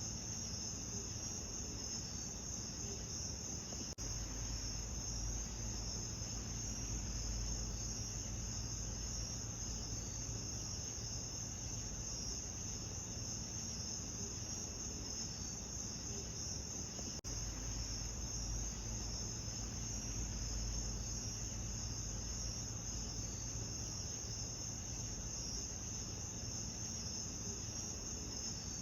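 Steady high-pitched chorus of crickets over a faint low rumble, with two brief dips in level about four and seventeen seconds in.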